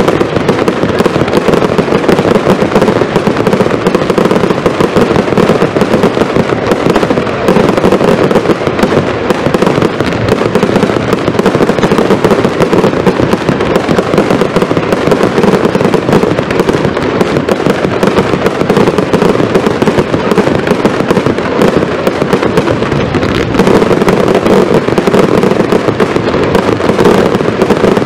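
Zena fireworks firing in a dense, unbroken barrage: rapid bangs and crackling reports from many shells bursting together, with no pause.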